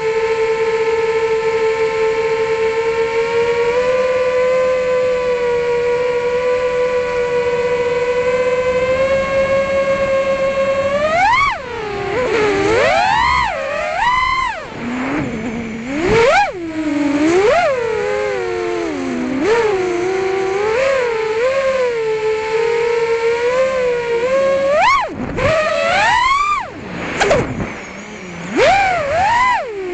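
FPV freestyle quadcopter's brushless motors and propellers whining, held at a steady pitch for the first eleven seconds or so, then swooping sharply up and down in pitch again and again as the throttle is punched and chopped through manoeuvres, with a couple of short drops near the end where the throttle is cut.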